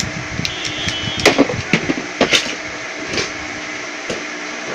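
Scattered sharp clicks and knocks of plastic toy parts being handled, over a steady background hum.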